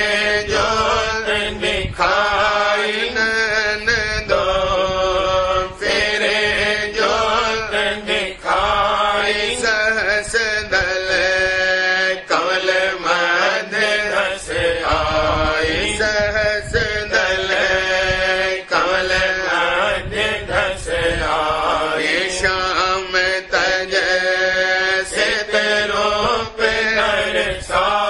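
A voice singing a devotional shabd (hymn) in a chanting style, in phrases of a second or two, over a steady drone.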